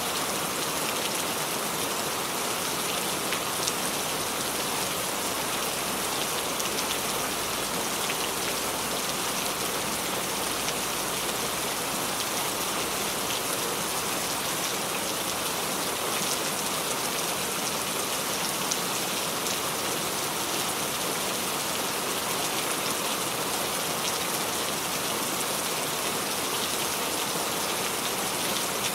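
Steady rain falling on a surface, an even hiss of many small drops with faint scattered patters, as a relaxation sound effect.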